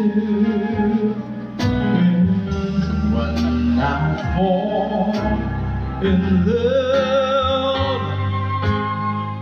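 Live band playing a song, with a male singer's melody over drum kit and keyboard; a sharp drum hit lands every second and a half to two seconds.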